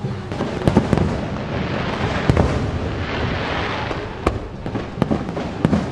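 Aerial fireworks shells bursting: a string of sharp bangs, about six, the loudest near the start and near the end, over a continuous crackling hiss from the bursts.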